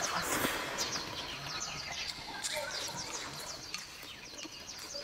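Jiangxi fried rice noodles slurped into the mouth, a loud rush of air in about the first second. Then a bird chirps over and over in quick, short calls.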